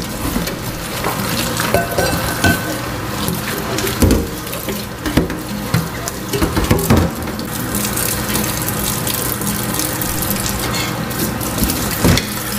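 Water running from a kitchen tap into a stainless steel sink while dishes are washed by hand, with a steel pot and plates scrubbed and rinsed under the stream. Several short knocks of pot and crockery against the sink, the loudest about four seconds in and near the end.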